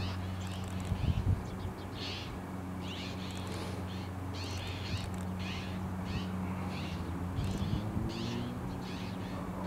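Small birds calling over and over in short, high-pitched notes, about once or twice a second, over a steady low hum.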